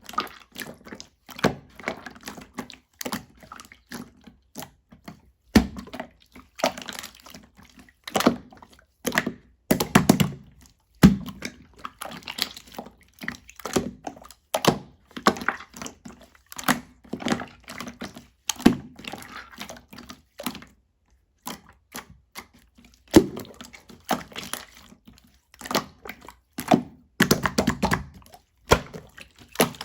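Soft, watery slime being squished and pressed by hand: a quick, irregular run of clicks and wet pops, with a few louder plopping squelches.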